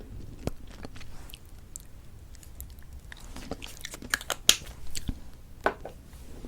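Close-miked mouth sounds of lipstick being put on: sticky lip smacks and clicks, scattered and sparse at first, then coming thicker and louder in the second half.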